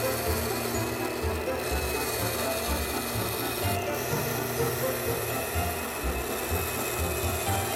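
Gemini Taurus 3 ring saw running steadily, its ring blade grinding through a sheet of glass as it cuts out a pattern.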